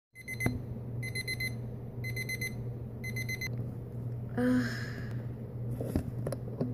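Digital alarm clock beeping in quick groups of four beeps, one group about every second, four groups in all, then stopping. A steady low hum runs underneath, and a short noisy sound follows about a second after the beeping stops.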